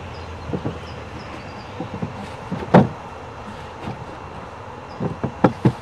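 Wooden Langstroth hive boxes and parts being handled and set in place: a series of dull wooden knocks, the loudest about three seconds in and three quick ones near the end.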